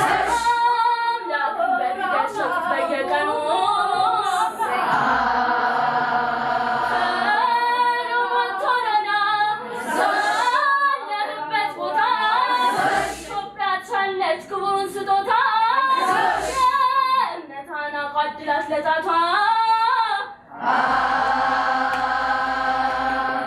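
A choir of young women singing an Ethiopian Orthodox hymn (mezmur) together, in winding phrases with long held notes, the last held note cutting off near the end.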